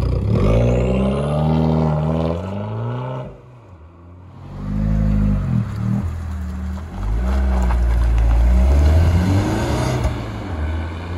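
Abarth 595 Competizione's 1.4-litre turbocharged four-cylinder engine heard through its Record Monza exhaust, with the revs climbing in steps. They drop off briefly about three seconds in, then climb again in a second, longer run that is loudest near the end and fades as the car drives away.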